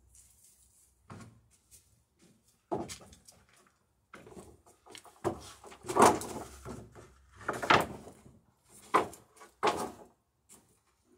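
A long wooden plank being handled and set down on a stack of boards on sawhorses: a string of irregular wooden knocks and short scrapes, the loudest about six seconds in.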